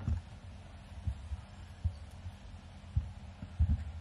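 Irregular dull thumps and knocks on the table microphones as a cloth flag is handled and spread over the desk, over a low steady hum.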